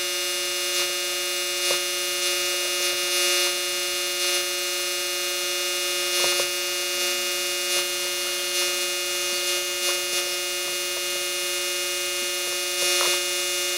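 Air-powered die grinder with an abrasive scrub disc running, a steady high whine, with a few faint ticks as the disc works over a golf-cart electric motor's metal housing.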